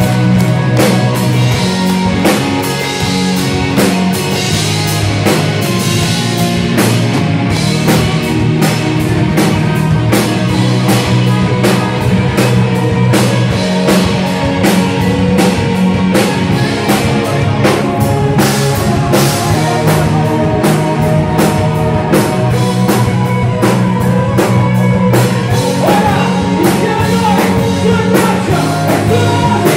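Live metal band playing loud: distorted electric guitars, bass guitar and a drum kit with rapid, regular drum and cymbal hits, with a lead singer's voice over the top.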